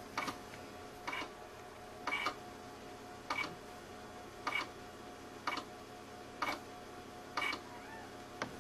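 Failing IDE hard disk drive in a Power Macintosh 6500/275 clicking at an even pace of about once a second, the repeated 'click of doom' of a dying drive, over a faint steady hum.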